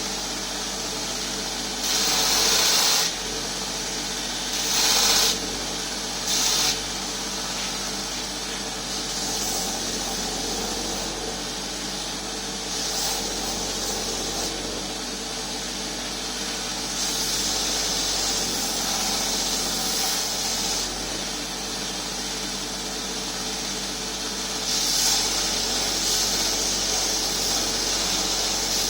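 Power grinder running steadily, with hissing surges as the handle blank is pressed against the abrasive for freehand rough shaping: short bursts early, then longer passes later.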